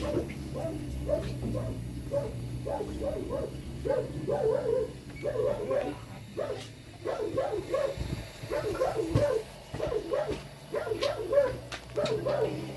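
An animal's short, repeated cries, a few a second, with brief pauses between runs, over a steady low hum.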